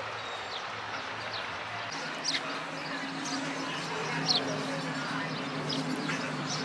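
Birds chirping in short, scattered calls, about a dozen, over open-air city background noise and a steady low hum whose pitch steps up about two seconds in.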